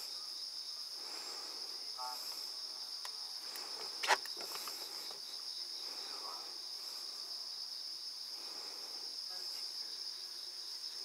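A chorus of insects trilling steadily at a high pitch, with one sharp click about four seconds in.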